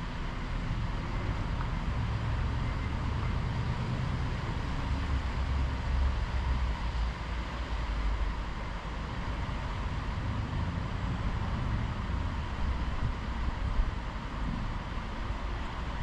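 Wind buffeting the microphone outdoors: an uneven low rumble that swells and eases in gusts over a steady hiss.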